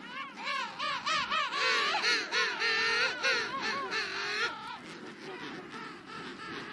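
Penguins calling: a rapid string of short calls that rise and fall in pitch, several overlapping, loudest in the middle and thinning to fainter calls after about four and a half seconds.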